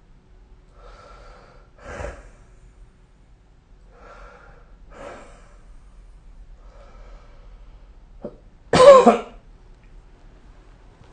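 A sleeping person's slow, noisy breathing, a faint breath every second or two, then a sharp click and a short loud cough about nine seconds in.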